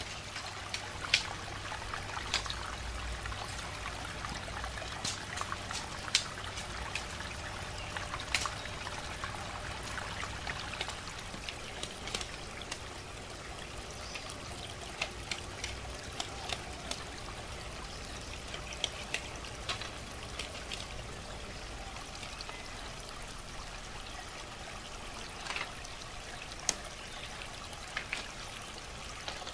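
Steady trickle of running water, with scattered light clicks and clacks of thin bamboo strips being handled and laid down.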